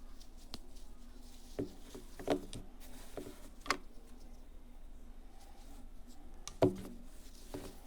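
Unboxing handling noises: about seven sharp, irregular clicks and knocks as the box and its contents are handled and set down, the loudest about two-thirds of the way through.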